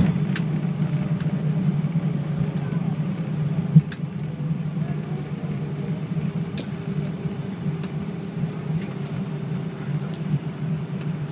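Airbus A320 cabin noise on the ground after landing: a steady low drone of the engines and the rolling airliner, with a few light clicks and rattles. A single bump comes a little under four seconds in, after which the drone eases slightly.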